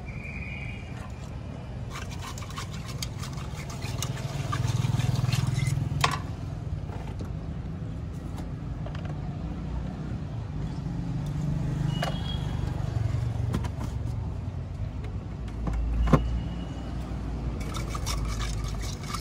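Road traffic running steadily, swelling twice as vehicles pass, with a few sharp clicks over it.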